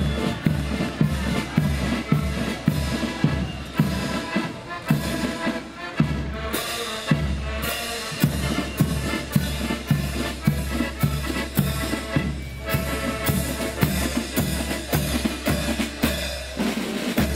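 Marching accordion band playing a march tune on piano accordions, with snare drums, a bass drum and cymbals keeping a steady beat.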